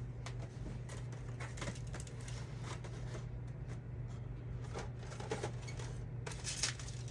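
Steady low hum with scattered soft clicks, knocks and rustles of handling, a little louder near the end.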